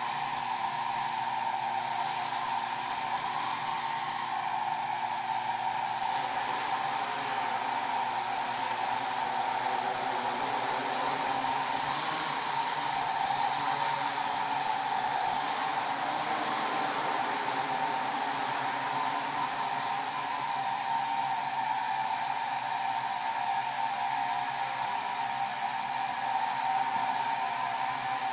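Quadcopter with four 910kv brushless motors spinning 10x3.8 APC propellers, running in flight with a steady whine and buzz of motors and props. It grows louder for a few seconds about halfway through.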